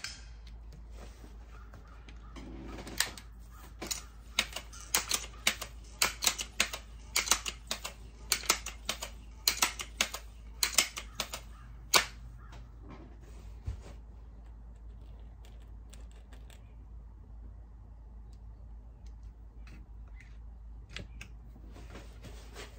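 Rapid, irregular run of sharp mechanical clicks and clacks from the Seneca Dragonfly MK2 multi-pump air rifle being worked between shots, about twenty of them over some nine seconds, starting a few seconds in. A few fainter clicks follow near the end.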